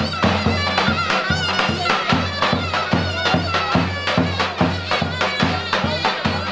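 Traditional Turkish folk dance music: a wind instrument plays a wavering, ornamented melody over a steady drum beat.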